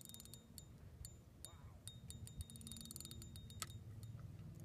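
Faint runs of rapid clicking from a fishing reel while a hooked trout is being played: a cluster near the start and another about three seconds in, over a low outdoor rumble.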